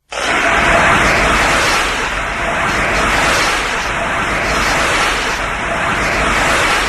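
A SpaceGodzilla film sound effect: a long, loud rush of dense noise that starts abruptly and holds steady without a clear pitch.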